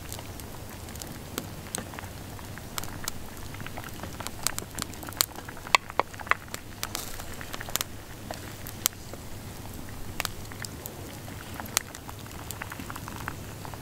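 Wood campfire crackling, with sharp irregular pops and snaps over a steady low hiss of the flames, the densest and loudest pops about five to seven seconds in. A wooden ladle knocks and scrapes in the hanging pot as food is dished out.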